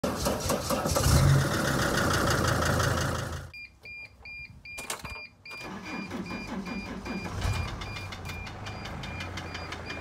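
Mercedes Sprinter van's diesel engine running, then cut off. A dashboard warning chime beeps about three times a second. A little over five seconds in, the engine cranks, starts and idles, with the chime still beeping.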